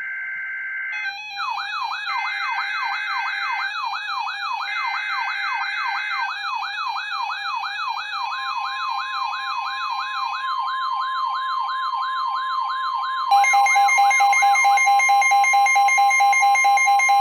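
Emergency Alert System activation on NOAA Weather Radio. Three short screeching data bursts of the SAME header play under a fast, repeating up-and-down siren sweep. A steady single-pitch warning tone comes in about eight seconds in, and a louder pulsing alarm tone joins about thirteen seconds in.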